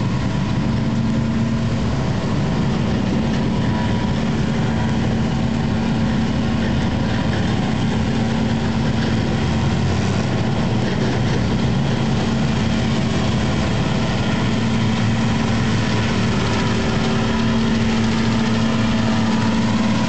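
Tractor engine running at a steady speed with an unchanging low drone during silage harvesting.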